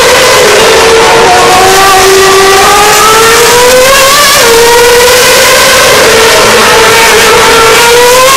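Formula 1 cars' V8 engines running at high revs past the track. The pitch climbs, drops once about four seconds in, then climbs again, over a steady rush of noise.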